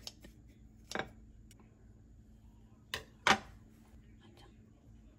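Kitchen scissors snipping through soft grilled eggplant, then two sharp utensil knocks against the dishes a little past halfway, the second the loudest.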